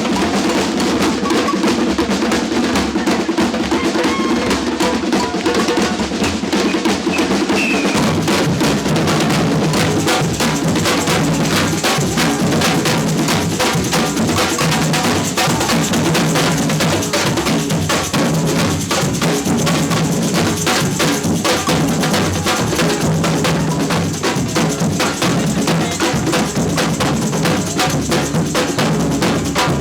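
Samba batucada drum band playing a dense, steady groove of snare drums and bass drums. The deepest bass drums come in about eight seconds in.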